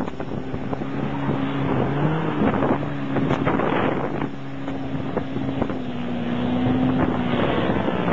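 Off-road 4x4 engine running under load, its pitch rising a little and settling as it revs, then falling away near the end. Wind buffets the microphone throughout.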